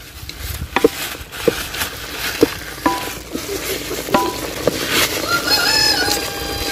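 A wooden spatula stirs bamboo shoots frying in an aluminium saucepan, with a low sizzle and scattered knocks of the spatula against the pot, a few of which ring briefly. About five seconds in, a rooster starts crowing in one long wavering call, louder than the stirring.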